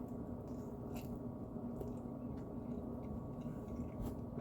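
A person chewing a bite of a fried mini tortilla shell with chicken and salsa, wet chewing with a few faint crunchy clicks, over a steady low hum.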